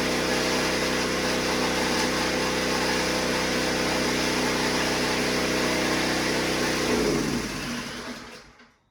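Kärcher pressure washer's motor and pump running steadily, then cutting off about seven seconds in and spinning down.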